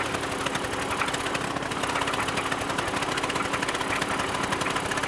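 Small gasoline engine driving a drum concrete mixer, running steadily with a fast, even pulse, while sand and gravel churn in the turning drum.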